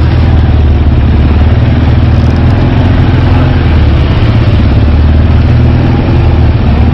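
ATV engine running steadily while riding along a dirt trail, heard from aboard the machine, with a steady rushing noise over the engine hum.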